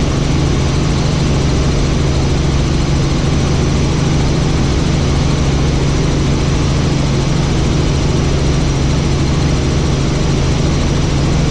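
Helicopter in flight: a steady, loud drone of engine and rotor with a low hum that does not change.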